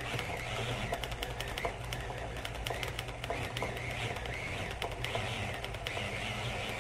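Electric food processor running, chopping raw stew beef. A steady motor hum, with an irregular clatter of meat chunks knocking against the blade and bowl.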